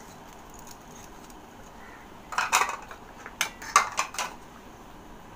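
Sharp clinks of small kitchen bowls and utensils knocking together as ingredient bowls are handled: a couple of clinks about two and a half seconds in, then four or five more about a second later.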